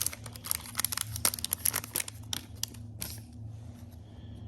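Foil trading-card pack wrapper being torn open and crinkled in the hands, a dense crackle of rustles and clicks that thins out after about three seconds.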